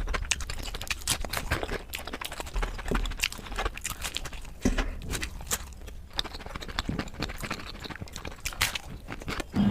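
Close-miked chewing: a quick, irregular run of wet mouth clicks and lip smacks as food is eaten.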